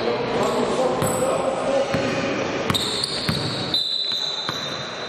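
Basketball bouncing on the court floor: several irregular thuds, over voices in the hall, with a thin high-pitched squeal holding through the middle.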